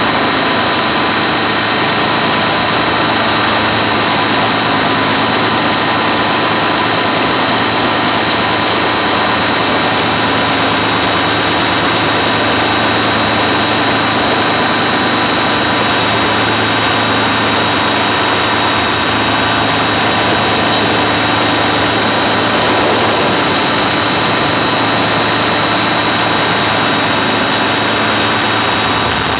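Helicopter running at a constant speed, its engine and rotor giving a steady high-pitched whine of unchanging pitch over an even rushing noise.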